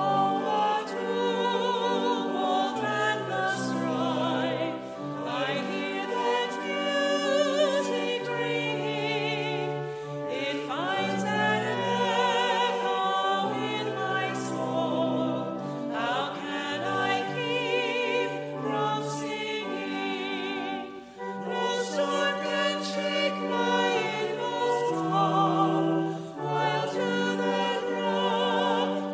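A small group of voices singing a hymn with pipe organ accompaniment, the organ holding steady low notes under the wavering voices; the second verse runs into the refrain near the end.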